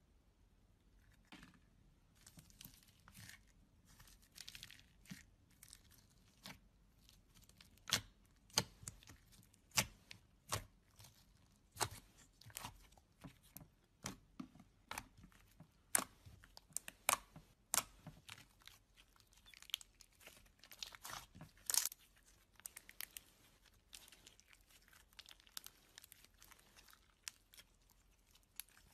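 Hands squishing and poking a thick slime with small black beads mixed in. It makes an irregular run of sharp pops and crackles, loudest and most frequent in the middle stretch.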